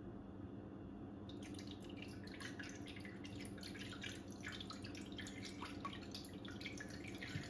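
Tequila poured from a glass bottle into a blender jar over frozen passion fruit juice cubes: faint, irregular splashing and trickling that starts about a second in.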